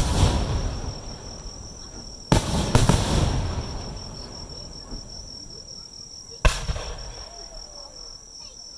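Aerial firework shells bursting: four sharp bangs (one right at the start, two close together about two and a half seconds in, one more about six and a half seconds in), each trailing off in a rumbling echo. Insects trill steadily and high-pitched underneath.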